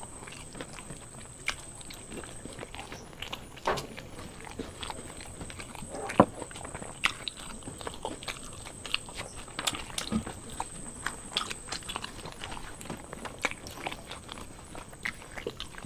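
Two people eating paratha and dum aloo with their hands: chewing, mouth clicks and smacks, the flatbread being torn and dipped in potato curry. Scattered short taps and clicks come at uneven intervals, the sharpest about six seconds in.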